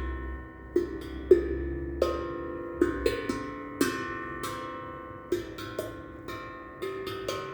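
Ringing, bell-like percussion struck about a dozen times at irregular intervals, each note sounding at a few different pitches and slowly fading.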